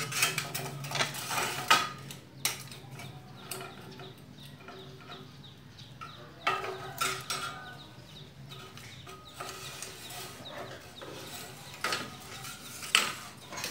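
Light metallic clinks, rattles and a few sharper knocks as an aluminium profile bar and a Toyota Avanza power window regulator are handled and laid against each other. The clatter comes in bunches: right at the start, again about halfway, and once more near the end.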